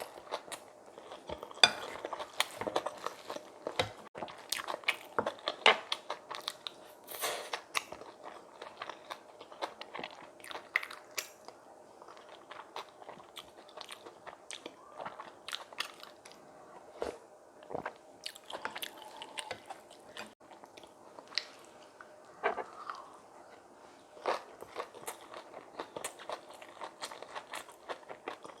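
A person chewing and crunching mouthfuls of spicy kimchi bibimbap, with sharp, irregular crunches and wet chewing sounds, several a second at times.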